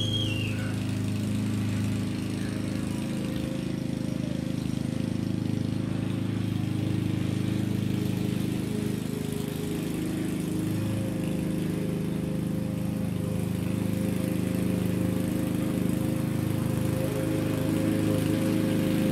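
Lawn mower engine running steadily under load, with a brief high chirp right at the start.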